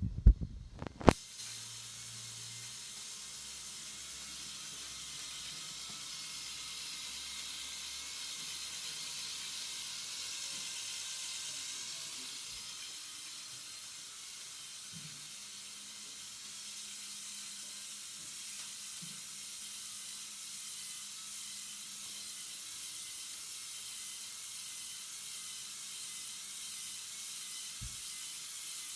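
Motorized LEGO 42055 bucket wheel excavator running: its electric motors and plastic gear trains make a steady whirring hiss that starts about a second in, right after a couple of sharp knocks.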